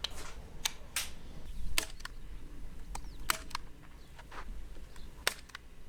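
Sharp metallic clicks and snaps of Desert Eagle pistol parts being handled and fitted together, about six of them at irregular intervals.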